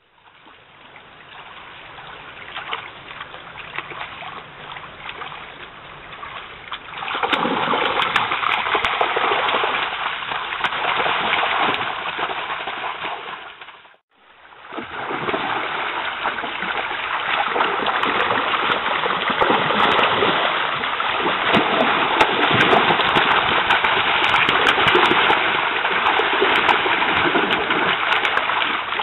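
Shallow salmon stream running over stones, with splashing in the water as a bear wades and fishes. The water grows much louder about a quarter of the way in, drops out for a moment near the middle, then runs on loud.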